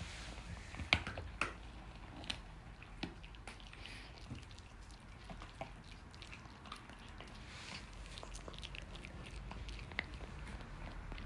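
A dog chewing and biting on something, with scattered, irregular crunches and clicks.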